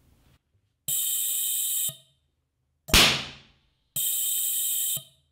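Metal pulsed detonation engine test-firing at about one pulse a second: a steady electric buzz lasting about a second, then a single sharp detonation bang about three seconds in that dies away quickly, then a second one-second buzz near the end.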